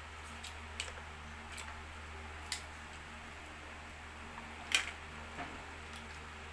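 Sparse sharp clicks and taps of mussel shells and shrimp being pried apart and handled by hand over plates, a few scattered hits with the loudest one about three-quarters through, over a steady low hum.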